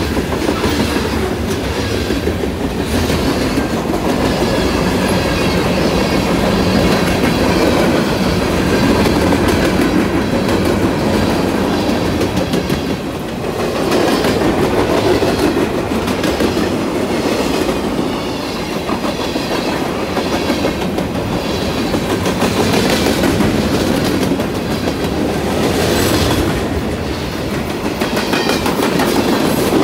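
Freight cars rolling past close by: a steady rumble of steel wheels on the rails, with repeated clicking as the wheels cross rail joints and a faint high squeal from the wheels.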